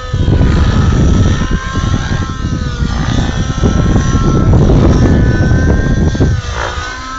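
Hirobo radio-controlled helicopter flying 3D aerobatics, its rotor and motor whine slowly rising and falling in pitch. A loud, irregular low rumble covers it until about six seconds in, when it drops away abruptly.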